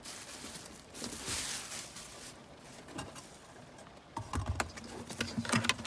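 Unboxing handling: a plastic packaging bag rustling, with small clicks and knocks as parts are handled. There are a few louder knocks near the end.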